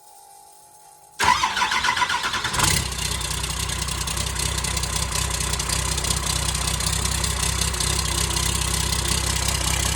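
Swapped-in Cummins diesel engine cranking over for about a second and a half, then catching on its first test start and running on at a steady idle with no exhaust system fitted.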